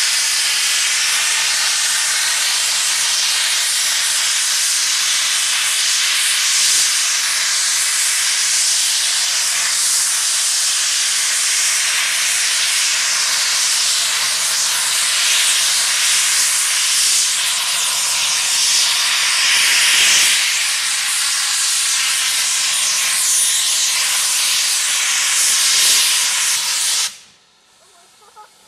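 Steam blasting from the cylinder drain cocks of a BR Standard Class 4MT 2-6-4 tank locomotive: a loud, steady hiss that cuts off suddenly near the end.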